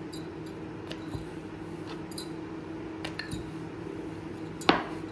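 Quiet kitchen handling while chapati dough is worked: a few light clicks and clinks, with one sharper click near the end, over a steady low hum.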